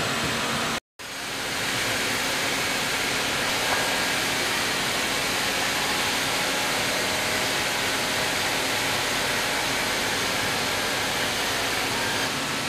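Steady noise of sawmill machinery running, an even rush with a faint hum and no distinct strokes or cuts. It cuts out completely for an instant about a second in, then comes back at the same level.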